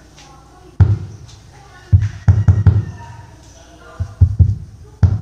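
Wireless microphone being tapped, each tap coming out of the PA loudspeaker as a loud bassy thump, in irregular groups of one to several quick taps. No feedback howl builds up after the taps: the mic, fitted with a 2A104G mylar capacitor, stays stable about a metre from the speaker.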